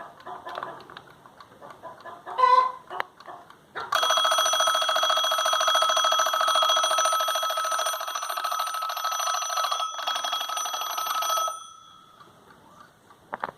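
Mechanical alarm clock's bell ringing: after some clicks and a knock, the hammer starts striking the bell about four seconds in, in a fast, even, continuous rattle with a bright steady ring. It runs for about seven and a half seconds, with a brief gap shortly before it stops suddenly and the ring fades.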